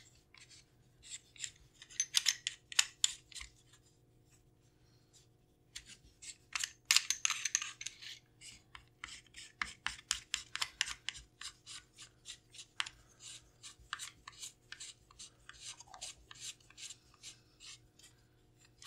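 Shotgun barrel nut being spun onto its threads by hand: light metallic scraping and clicking. A few scrapes come first, then a pause of about two seconds, then a long run of quick clicks and scrapes as the nut is turned down hand tight.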